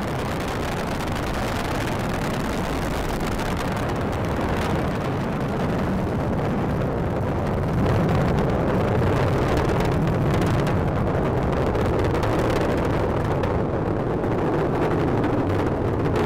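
Falcon 9 rocket's nine Merlin engines in flight during ascent: a steady, dense rumbling roar, a little louder about eight seconds in.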